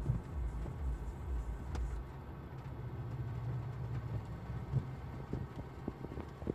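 Low rumble inside a car cabin. A pulsing bass from the car's speakers fades out about two seconds in, leaving a steady low hum with a few faint clicks.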